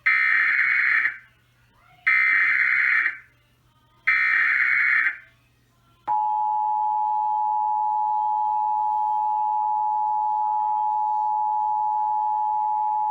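Emergency Alert System alert opening: three one-second bursts of buzzy SAME header data tones about two seconds apart. Then, about six seconds in, the steady two-tone EAS attention signal begins.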